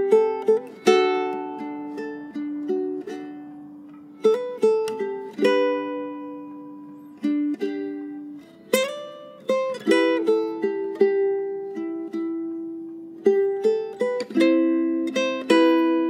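Alegria UK58T ukulele with carbon strings, fingerpicked: a slow tune of single notes and plucked chords that ring on and fade between plucks, with a stronger chord about halfway through.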